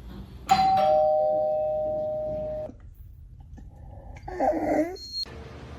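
Two-note ding-dong doorbell chime: a higher note, then a lower one, ringing and fading over about two seconds. A short pitched sound follows near the end.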